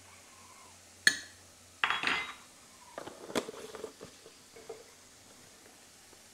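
A metal teaspoon clinking and tapping against pots and dishes: a few sharp knocks about a second apart, then lighter taps.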